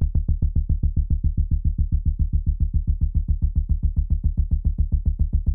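Pulse bass patch in the Serum software synth: one low bass note chopped by an LFO into rapid, even pulses, about seven or eight a second. Its brightness dips and comes back partway through as the filter is adjusted.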